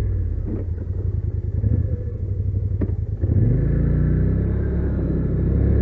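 Polaris Sportsman XP 850 ATV's twin-cylinder engine idling, then revving up a little over three seconds in as the quad pulls away, settling into steady running.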